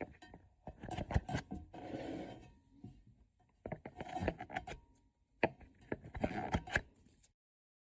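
Hands rubbing and scraping on a subwoofer's paper cone and frame, rolling loose debris off the cone, with scattered short clicks and taps. The sound cuts off abruptly near the end.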